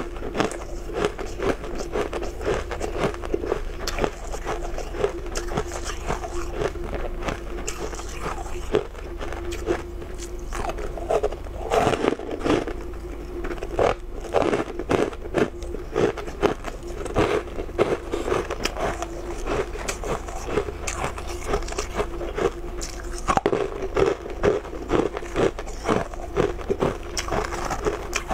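Close-up bites and chewing of packed, snow-like shaved ice: a dense run of crisp crunches, one after another.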